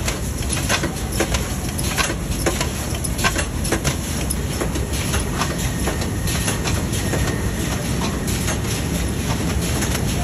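Salt refinery machinery running: a steady mechanical din with irregular clattering knocks, thinning out after about six seconds.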